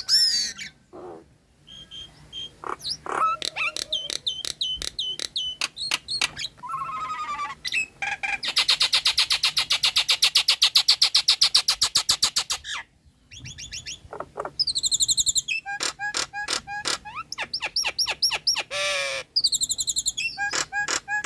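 Nias hill myna singing a varied song of whistles, sharp clicks and chatter, with a fast rattling run of about four seconds in the middle.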